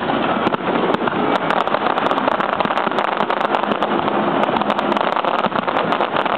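Fireworks display going off, a dense continuous crackle of many rapid small pops over a steady rushing noise.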